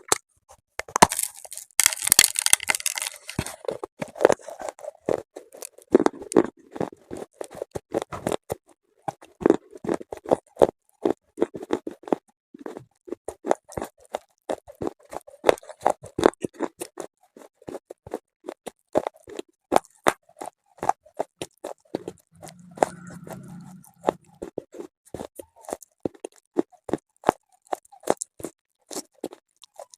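Close-miked crunching and chewing of hard, brittle pieces such as slate pencil or chalk: a dense run of sharp crunches, with a louder crackling burst about one to three seconds in. A brief low hum comes about three-quarters of the way through.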